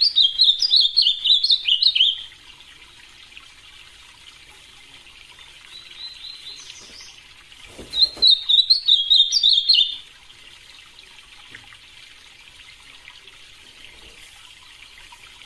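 Ultramarine grosbeak (azulão) singing: two fast, warbled phrases of about two seconds each, one at the start and another about eight seconds in, over a faint steady hiss.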